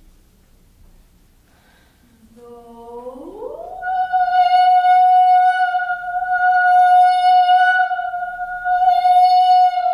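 Unaccompanied soprano voice: after a quiet couple of seconds she sings a low note, slides smoothly up to a high note and holds it for about six seconds.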